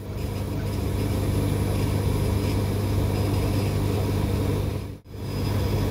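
K40 CO2 laser cutter running while it cuts foam: a steady low mechanical hum, which cuts out briefly about five seconds in and then resumes.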